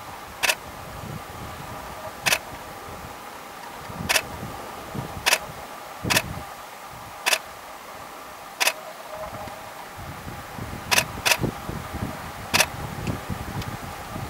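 Camera shutter clicking about ten times at irregular intervals, twice in quick succession near the end, over a steady hum.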